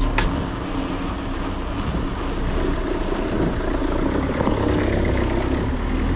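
Steady road and traffic noise heard while cycling through city streets: a low rumble under an even rushing hiss.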